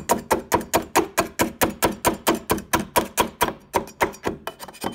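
Rapid, even knocking of a tool chipping hardened hot glue off a fibreglass bonnet scoop, about six strikes a second, each with a short hollow ring from the fibreglass shell; the strikes soften near the end.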